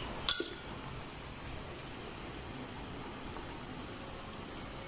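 Minced meat and onion simmering in added water in a frying pan, a steady bubbling hiss as the meat cooks through. One sharp metallic clink comes a moment in.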